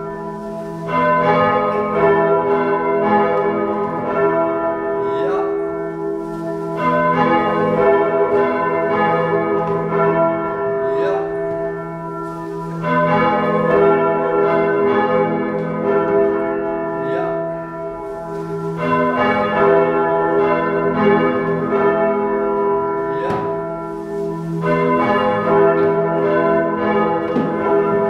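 Three church bells swung by hand from ropes, pealing together: overlapping strokes over a long ringing hum that swells and eases about every six seconds.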